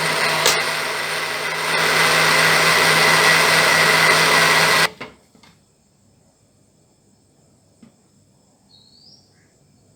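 Electric kitchen blender running on cookie batter, with a steady whine. It gets louder about two seconds in and stops abruptly about halfway through, when it is switched off.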